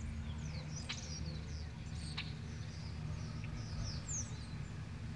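Small birds chirping, with short high calls and quick sweeps scattered throughout, over a steady low rumble.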